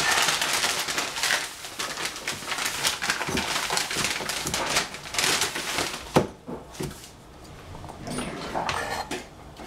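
Cleaver cutting a zucchini on a plastic cutting board: a dense run of cuts and knocks for about six seconds, then a few single knocks, the sharpest one just after six seconds in.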